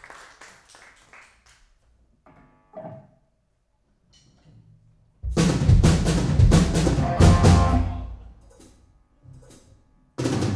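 Applause dying away, then a live rock band (drum kit, electric guitars and bass) strikes a loud full-band hit about five seconds in and lets it ring out for about three seconds. A second loud band hit comes just before the end.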